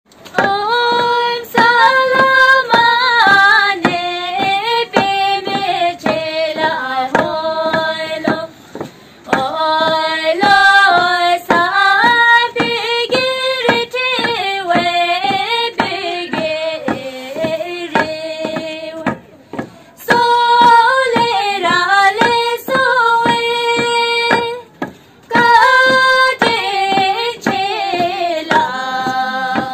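A woman singing a Bhutanese farming work song without accompaniment, in long phrases with held notes and short breaks between them, with regular knocks keeping time.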